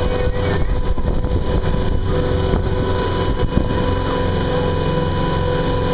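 Small passenger boat's motor running steadily while cruising, with a constant hum and water rushing along the hull.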